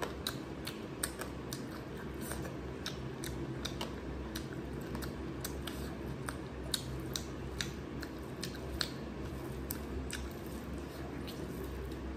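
Close-miked eating sounds: a run of irregular sharp clicks from chewing and from fingers mixing curry and rice by hand, over a steady low hum.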